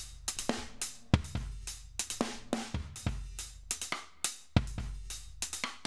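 Live drum kit loop at 140 bpm (kick, snare, hi-hats) playing through Logic Pro's Compressor, slammed at a ratio of 15 with an attack of about 20 ms so the hit transients poke through. The release is being turned up from 5 ms to about 84 ms.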